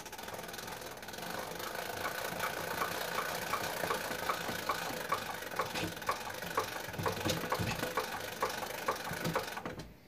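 Spring-motor mechanism of a wind-up cabinet gramophone, a steady mechanical whirr with regular clicks about three a second. It stops suddenly near the end.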